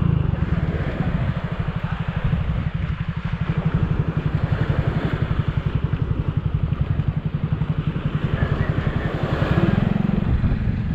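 Small single-cylinder motorcycle engine, a Kawasaki Fury 125 underbone, idling with a steady, even putter. Gusts of wind hit the microphone briefly near the end.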